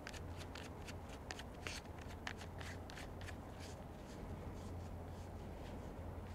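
Gloved hands handling a spinning reel on a fishing rod: a quick run of small clicks and rustles that thins out about halfway through.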